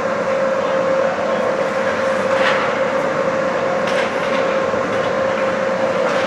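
Steady mechanical hum of an indoor ice rink, with one constant tone running through it, and a few faint sharp knocks from hockey play on the ice about two and a half and four seconds in.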